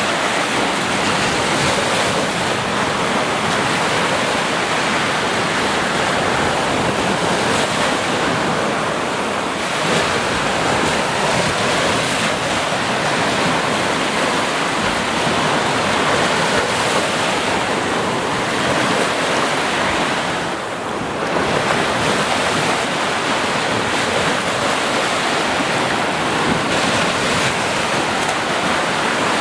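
Sea waves washing onto a beach: a steady, continuous rush of surf, easing briefly about two-thirds of the way through.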